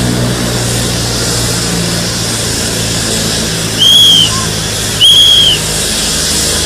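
Steady outdoor crowd and traffic din with a low engine hum. About four and five seconds in come two short, loud, shrill whistles, each rising then falling.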